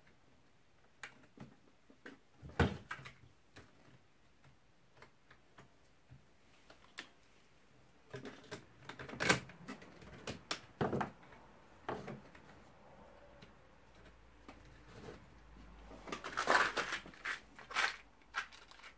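Scattered clicks, knocks and light clatter of chainsaw parts and hand tools being handled as a Stihl 034 AV chainsaw is taken apart, with a sharp knock about two and a half seconds in and busier rattling near the end.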